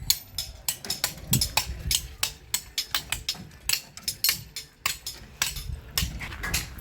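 Repeated sharp knocks at an uneven pace, several a second: hammering on a building site.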